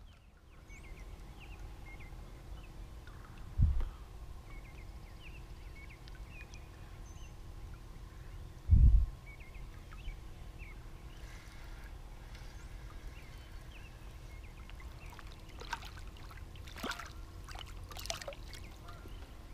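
Water splashing and dripping near the end as a hooked crappie is reeled to the surface and lifted beside a plastic kayak, over a steady low rumble with faint chirps. Earlier come two dull thumps about five seconds apart, the second the louder and the loudest sound of all.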